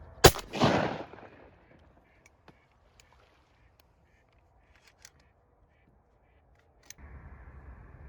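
A shotgun blast, sharp and very loud, followed at once by a second loud burst that trails off over about a second, then only a few faint clicks.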